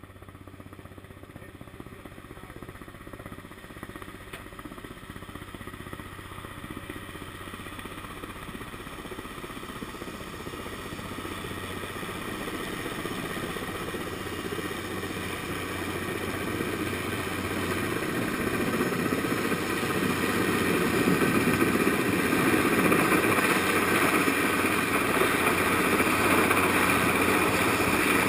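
Sikorsky S-58 helicopter approaching, its engine and rotor noise growing steadily louder until it is overhead near the end.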